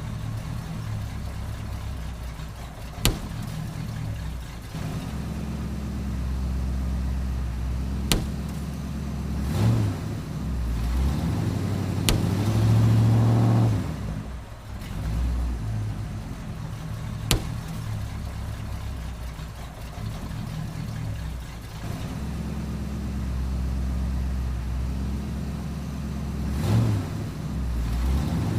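Car engine running at low speed, rising briefly about halfway through, with four single sharp pops spread through the stretch: balloons bursting under the tyres.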